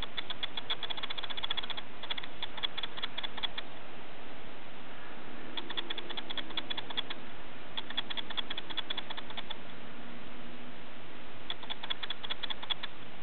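Rapid clicking in five trains, each one to two seconds long with short gaps between, over a steady hiss.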